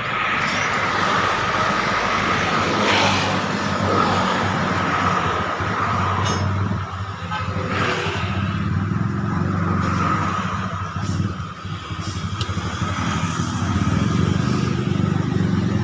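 An engine running steadily, with outdoor street noise around it.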